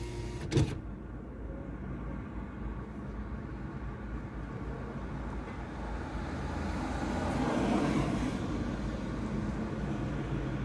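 Road traffic heard from inside a stationary car cabin: a steady low rumble, with a sharp knock about half a second in and a vehicle passing alongside, its noise swelling and fading in the second half.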